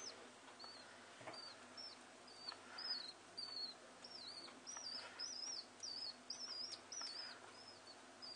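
Common house martin chick calling: a run of short, high, wavering chirps, two or three a second, coming quicker and louder in the middle.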